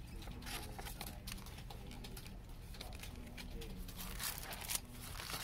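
Paper sleeves and a CD in a clear plastic sleeve being handled: soft rustling with light clicks and scrapes, briefly louder a little past four seconds in.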